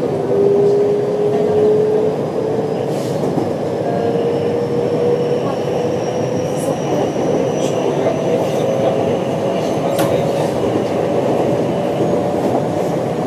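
Electric train running, heard from inside the carriage: a steady rumble of wheels on rails under a motor whine that slowly rises in pitch as the train gathers speed, with a few sharp clicks.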